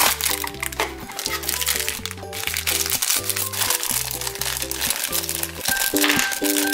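Clear plastic wrapping crinkling as it is handled and opened by hand, over background music with a bass line and a light melody.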